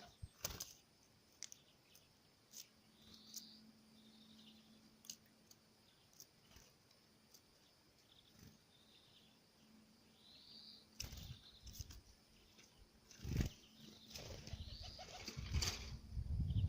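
Birds at a feeder: scattered sharp pecking taps and a few short high chirps, then louder wing flutters and knocks in the last few seconds.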